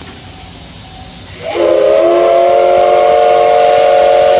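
Steam whistle of the C11 325 steam locomotive, a single long blast of several tones at once that starts about a second and a half in. Steam hiss runs underneath it.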